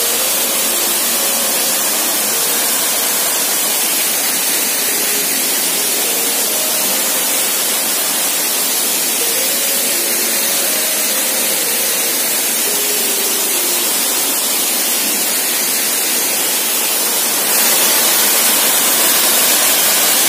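Waterfall: a steady rush of falling water, growing a little louder near the end.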